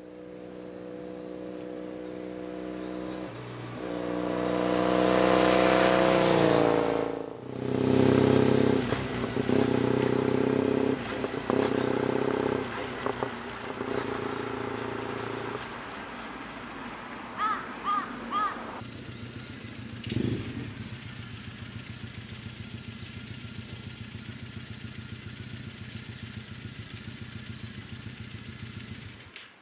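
Triumph Bonneville T100 parallel-twin motorcycle engine accelerating, its pitch rising and then breaking at a gear change, running on, then slowing and settling into a steady idle for the last ten seconds. Three short high chirps sound about halfway through.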